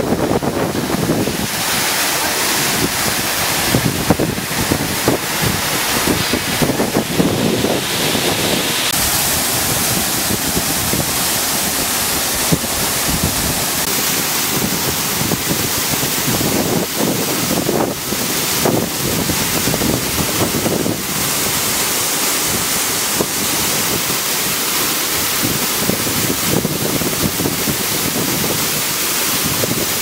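High-pressure water jets of a drive-through truck chassis washing machine spraying hard against a truck: a loud, steady rushing hiss of water.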